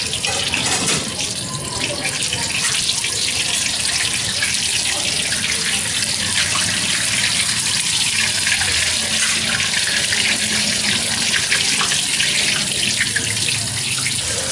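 Hot oil in a large wok sizzling steadily with dense fine crackling as a batch of round battered cakes deep-fries.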